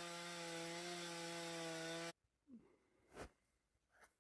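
Two-stroke chainsaw running steadily at an even pitch. About two seconds in it cuts off abruptly, leaving near silence with a couple of faint, brief sounds.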